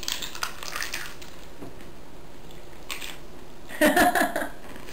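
Crisp corn taco shell crunching and cracking as it is bitten and chewed, with crackles in the first second and another near three seconds. About four seconds in, a short laugh is the loudest sound.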